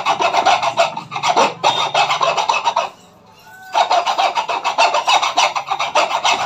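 Bajaj mixer grinder's steel armature shaft being filed: quick, even rasping strokes against a flat file, with a pause of about a second near the middle. The shaft is being filed down because the new bush goes on too tight.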